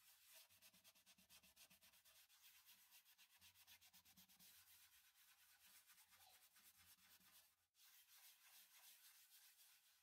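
Paper towel rubbing shellac into the inside of a bare-wood macrocarpa pine bowl by hand. Faint, quick, even back-and-forth strokes, with a short pause a little before the eighth second.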